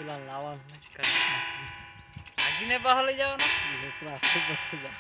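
Homemade wind-driven crop scarer: the spinning propeller makes its striker hit a round metal plate, giving four irregularly spaced metallic clangs, each ringing on and wavering as it dies away. The clanging is meant to frighten wild animals away from the crop.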